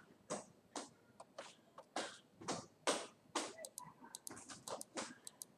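A screwdriver working screws in a laptop's underside: irregular short clicks and scrapes, with a quick run of sharp ticks in the middle.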